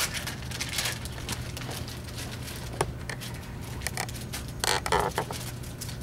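Paper wrapper of a sterile glove packet rustling and crinkling as it is handled and unfolded, in short scattered bursts with a few light clicks, the busiest stretch near the end. A steady low hum runs underneath.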